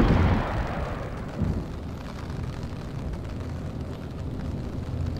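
The echoing tail of a gunshot, dying away over the first second or so and leaving a low, steady rumble.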